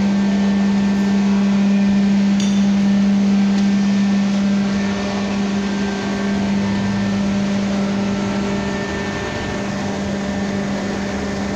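Kawasaki K3V112S hydraulic pump running under test: a steady, loud machine hum with a fainter whine above it. There is one small click about two and a half seconds in, and the sound drops a little about five seconds in.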